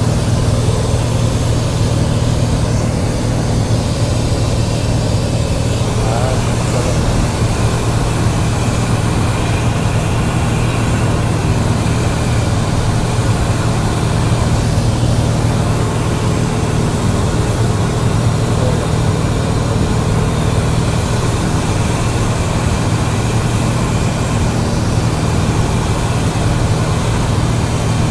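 Cessna 172's piston engine and propeller running steadily in flight, heard from inside the cabin: an even low hum with a hiss of airflow over it.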